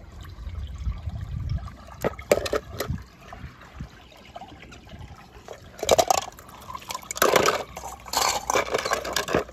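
Water splashing and sloshing in irregular bursts, a few about two seconds in and a busier run from about six seconds on, as toy cars are dropped and moved about in a pool of water.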